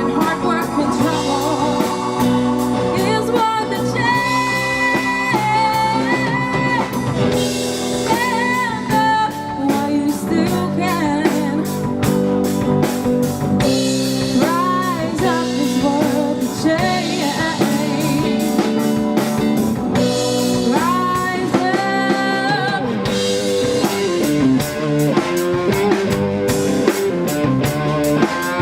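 Live rock band playing: drum kit and guitars under a wavering lead melody line, at a steady full volume.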